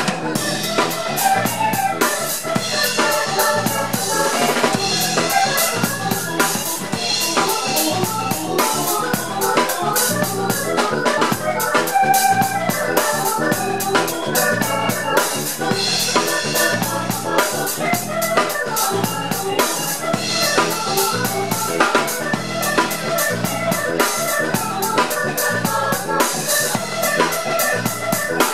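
Live band music: a keyboard with an organ sound plays quick runs of notes over a steady drum-kit beat with snare and rimshot strokes.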